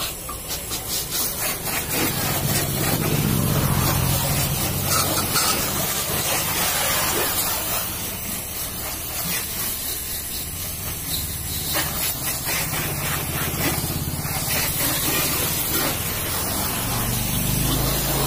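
High-pressure car-wash water jet spraying against a car's body panels, a continuous hiss of spray and spatter. A low hum rises and falls underneath, strongest a couple of seconds in and again near the end.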